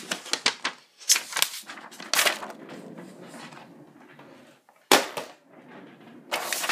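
A sheet of paper being pulled from a file folder and handled: irregular sharp clicks and rustling swishes.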